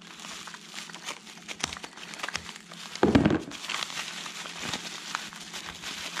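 Packing material crinkling and rustling as a package is unwrapped by hand, with many small crackles and a louder thump about three seconds in.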